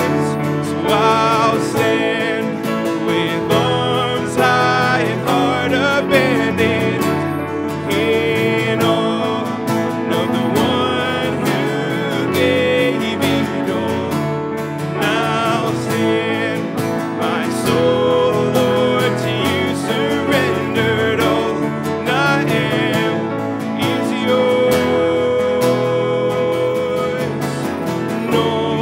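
A man singing a hymn, accompanied by his own strummed acoustic guitar and a keyboard playing piano chords.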